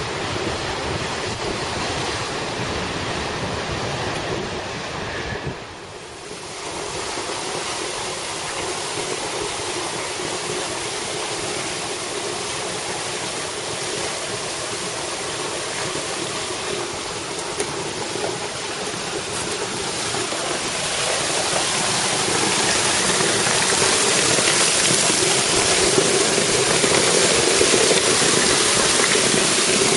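Large lake waves breaking and washing against a rocky shore for the first few seconds. After a short drop, a small waterfall rushes steadily into a pool, growing louder about two-thirds of the way through.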